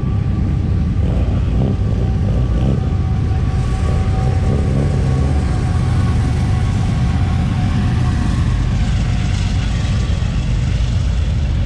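A car driving slowly, its engine and exhaust making a steady low rumble with no revving.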